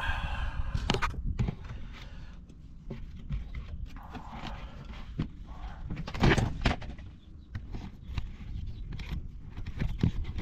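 Hand tools working on the tie-rod adjuster clamp bolts: irregular metallic clicks, scrapes and knocks, with a louder cluster of knocks a little past the middle.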